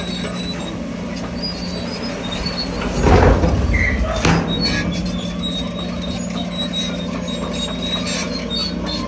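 Crawler bulldozer running steadily, its steel tracks squealing on and off. There is a louder burst of noise about three seconds in and a shorter one about a second later.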